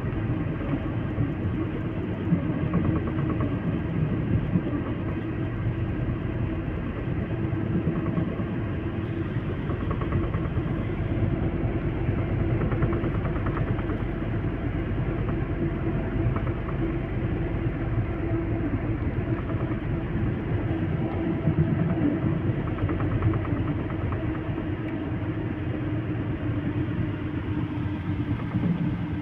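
Heavy construction machinery engines running steadily with a continuous low rumble.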